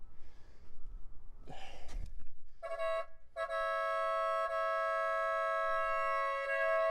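1988 Porsche 911 Targa's horn stuck on, a steady two-note blare that starts about two and a half seconds in, breaks off for a moment, then holds. The owner takes it for a cable wrapped around the clock spring grounding out the horn.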